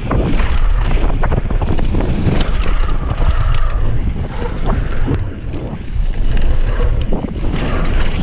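Heavy wind buffeting on the microphone as a mountain bike runs fast downhill on a dirt trail, with tyre rumble and scattered rattling clicks from the bike over the rough ground.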